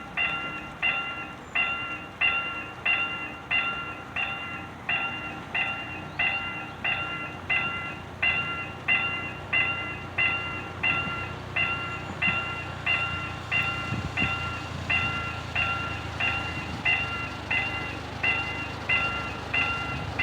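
Level crossing warning bell ringing steadily, an even ding about twice a second, signalling an approaching train. A low rumble swells and fades around the middle.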